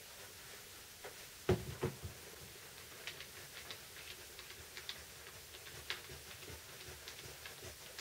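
Handling knocks from a switched-off Bosch multi-tool being set down on a wooden workbench: a quick cluster of knocks about a second and a half in, then light, irregular ticks and taps.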